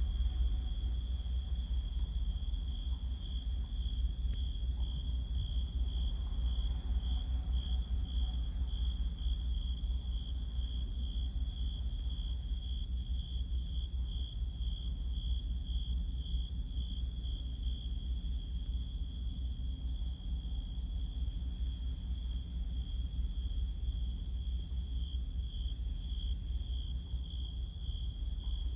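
Crickets chirping in a steady, pulsing high tone, a few pulses a second, over a louder, steady low rumble.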